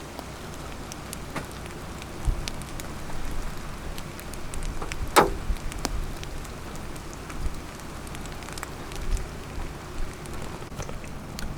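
Rain from a thunderstorm: individual drops strike in scattered, irregular clicks over a steady hiss. Now and then there is a low thump, and one louder hit about five seconds in.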